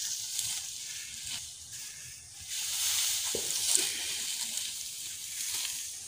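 Crackling rustle of dry rice straw as bundled paddy sheaves are handled and lifted, growing louder about halfway through.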